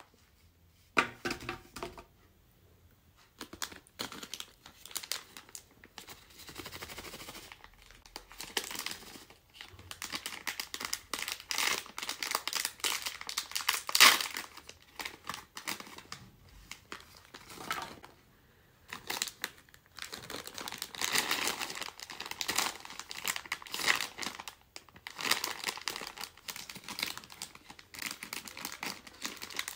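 Plastic candy wrappers and packets being crinkled and torn open by hand: dense, irregular crackling with sharper rips, the loudest about halfway through, broken by a couple of short pauses.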